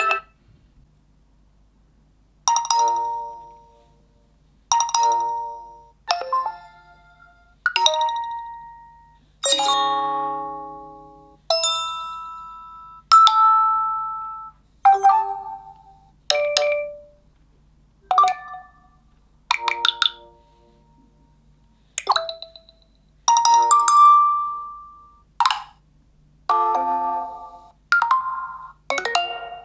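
Nokia 2.2 smartphone playing its built-in ringtone and notification tones one after another. There are about fifteen short tuneful chimes, each lasting a second or two and fading out, with brief pauses between them.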